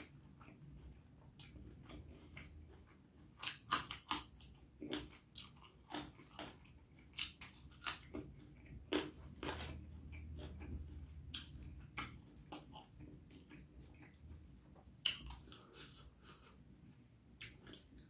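Close-up chewing and wet mouth sounds of a person eating beef curry with rice: irregular sharp mouth clicks, some louder than others.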